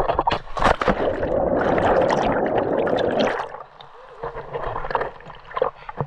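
Water splashing: a few sharp splashes in the first second, then a loud rush of churning water for about two seconds that drops away to a quieter lapping.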